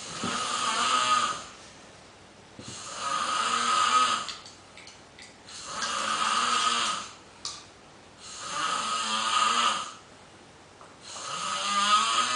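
A sleeper snoring in a regular rhythm: five long snores, each lasting a second and a half to two seconds, about three seconds apart, with quiet breaths in between.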